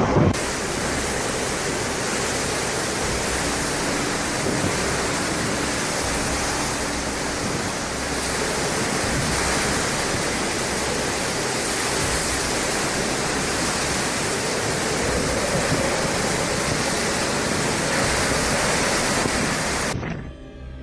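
A steady, loud rushing noise that cuts off abruptly near the end.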